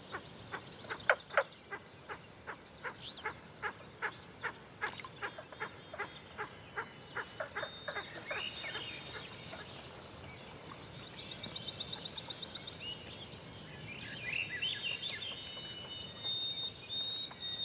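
Forest birds singing at dawn: high rapid trills and clear whistled notes, with a run of sharp knocks about twice a second over the first half.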